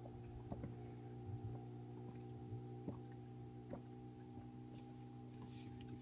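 Steady low mechanical hum made of several held tones, with a few faint light clicks.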